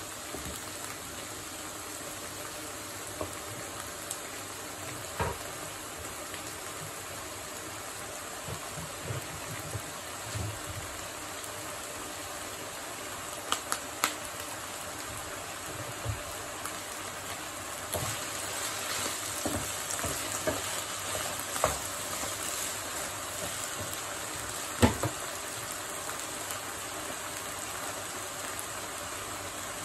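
Rice simmering in water in a frying pan, a steady bubbling and sizzling that grows livelier from about 18 seconds in. Scattered small clicks and knocks, the loudest about 25 seconds in.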